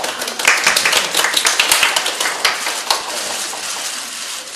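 Hand clapping from a group of people, a quick dense patter of claps that is loudest in the first three seconds and then tapers off.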